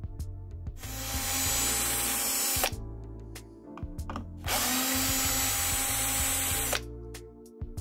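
Electric screwdriver running twice, about two seconds each, to back out screws from a soundbar's internal metal bracket, with a steady motor whine. Background music with a steady beat plays underneath.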